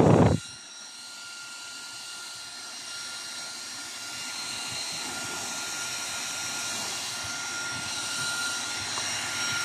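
Handheld turbo fan running at full speed: a steady high-pitched motor whine over a rush of air. Its blast of air on the microphone cuts off sharply about half a second in, leaving the quieter whine and hiss.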